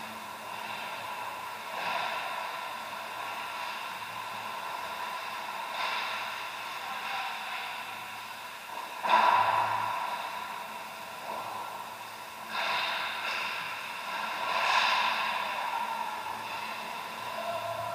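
Ice hockey play heard from beside the rink boards: skate blades scraping and swishing on the ice every few seconds, with a sharper, louder hit about nine seconds in, over a steady hum of several even tones.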